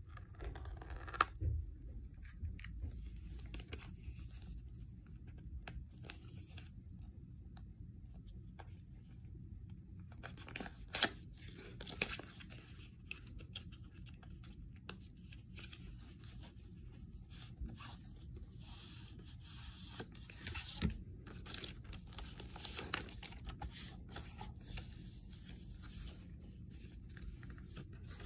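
An Apple Watch band's cardboard box being torn open and handled. The sound is irregular paper tearing, scraping and rustling, with a few sharper clicks.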